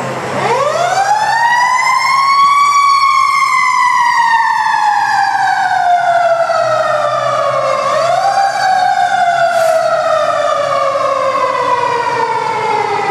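Fire truck's mechanical siren winding up to a high wail over about three seconds, then slowly coasting down in pitch; about eight seconds in it is briefly wound up again before it falls away once more. A low engine hum runs underneath.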